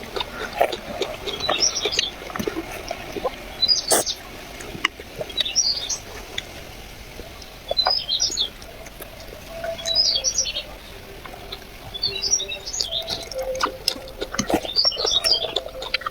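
A bird chirps in short bursts that come back about every second and a half to two seconds, over scattered clicks and knocks.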